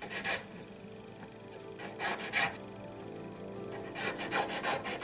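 Small hand file rasping across the wires of a jeweller's wire basket setting, which rests on a wooden bench peg. The strokes come in uneven bunches, one near the start, a couple about two seconds in, and a quicker run of strokes over the last second and a half.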